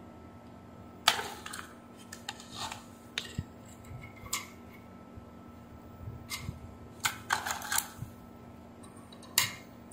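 Scattered sharp clicks and taps of small parts and tools being handled on an electronics repair bench, the loudest about a second in and near the end, with a quick run of them a little after halfway. A faint steady hum runs underneath.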